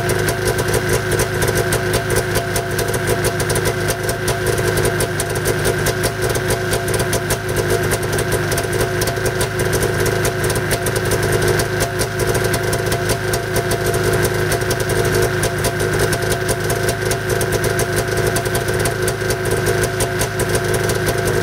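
Arctic Cat snowmobile's two-stroke engine idling steadily.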